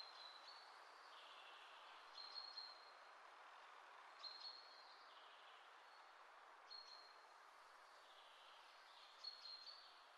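Near silence: faint background hiss, with faint short high chirps repeating every second or two.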